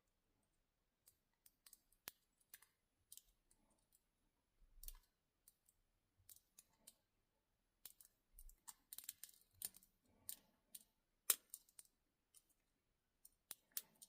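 Faint, irregular clicks and light metallic scraping of a lock pick and tension wrench working the pins of a tiny 15mm Yale padlock, with a busier run of small clicks about two-thirds of the way through.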